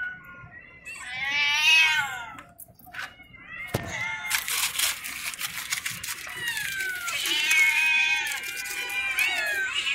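Several stray cats meowing loudly for food, overlapping cries that rise and fall in pitch, the loudest a long wail about a second in. From about four seconds in, aluminium foil wrapping crinkles under the meowing.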